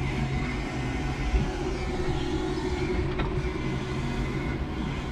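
Electric forklift running, a steady electric motor hum with low tones. A second, higher steady hum joins about a second and a half in.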